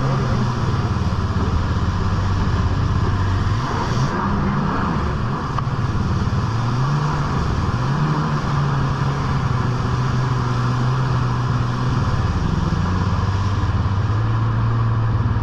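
Jet ski engine running hard at speed, its pitch dipping and rising as the throttle changes, over the constant rush of water spraying off the hull.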